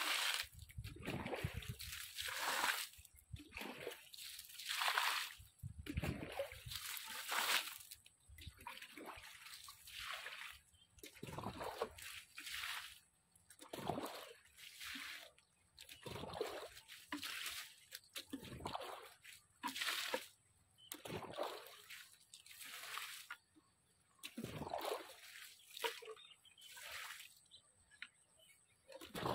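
Water splashing onto a vegetable garden as it is watered, in repeated separate splashes about every second or so.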